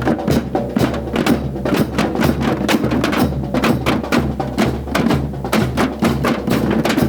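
Children's percussion group playing a fast, dense rhythm on drums made from recycled cans, buckets and scrap metal, many strokes a second over a steady low drone.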